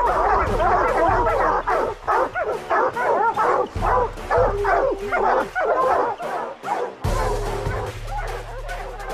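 A pack of hounds baying together at the foot of a tree, many overlapping bawls and barks at once: tree barking that marks a treed bear. About seven seconds in the sound cuts to a quieter stretch with fewer dog voices over a low rumble.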